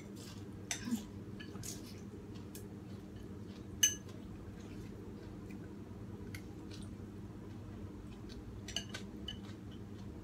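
Chopsticks clicking and clinking against a large ceramic bowl while noodle soup is eaten, with one sharp ringing clink about four seconds in and a few more clinks near the end. Between the clinks come soft slurps of rice noodles.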